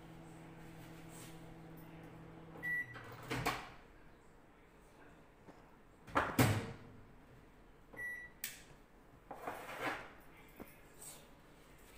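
Microwave oven humming as it runs a defrost cycle, then stopping about three seconds in with a short high beep. Clicks and knocks of its door and handling follow, the loudest a clunk about six seconds in, with a second short beep about eight seconds in.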